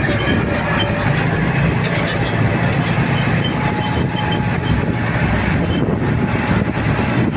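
A car on the move: steady engine and road noise with a constant low hum.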